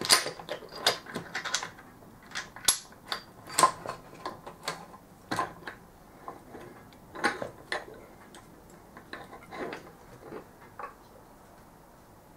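The steel gears and shafts of a BMW F650GS gearbox gear cluster clinking and clicking against each other as they are handled and pulled apart by hand. The clinks come irregularly, in small clusters, and stop about a second before the end.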